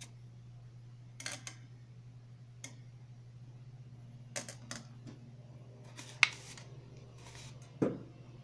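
Handling noise: a series of sharp clicks and knocks over a steady low hum, the loudest click about six seconds in and a duller thump near the end.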